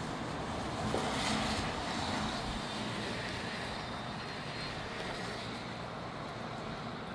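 Breezy wind rushing through trees, with gusts buffeting the microphone in a low rumble; a stronger gust swells about a second in and eases off.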